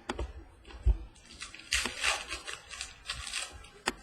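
Trading cards being handled and flipped through: a few light taps and a knock, with rustling as cards slide against each other in the middle.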